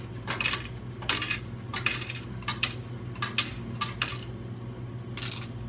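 Vending machine coin changer paying out coins into the metal coin return cup when the change button is pressed: a run of sharp metallic clinks, one after another. Quarters and dimes dispense, showing those coin tubes work.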